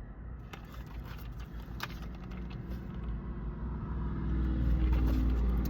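Low motor-vehicle engine rumble that grows steadily louder over the last few seconds, like a vehicle drawing near. There are a few light clicks in the first couple of seconds.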